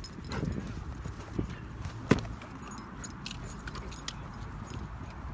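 A running dog's collar tags jingling, with light scattered clicks and one sharp knock about two seconds in.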